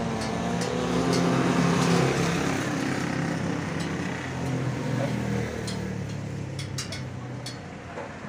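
A motor vehicle's engine running close by, loudest about two seconds in and then fading away over the next few seconds. A few faint light clicks sound over it.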